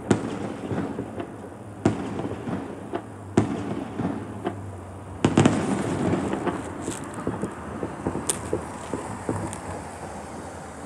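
Fireworks going off: sharp bangs every second or two, the loudest pair about five seconds in, followed by fainter, thinner pops.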